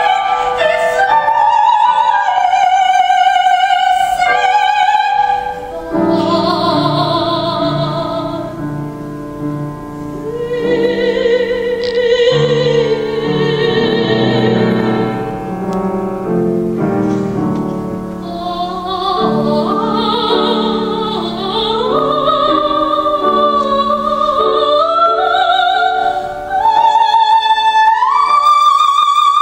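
Operatic soprano singing an aria in German with wide vibrato over piano accompaniment. The line climbs in steps near the end to a high, sustained note.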